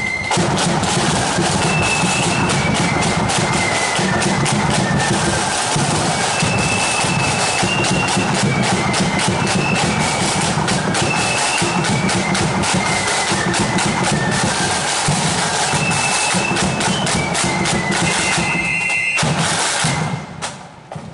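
Marching flute band playing a tune, with flutes carrying a high melody over side drums and a bass drum beat. The tune ends near the end, leaving a few drum taps.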